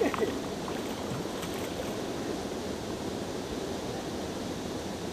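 Steady wind and water noise on open lake water around a small boat, with a brief louder sound right at the start.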